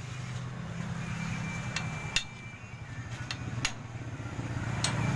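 Several sharp metallic knocks and taps from tools on metal during a motorcycle engine overhaul, over a steady low engine hum.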